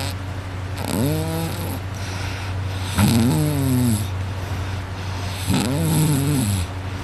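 A man snoring loudly in his sleep, lying on his back: three pitched snores, each about a second long and rising then falling in pitch, about two and a half seconds apart. A steady low hum runs underneath.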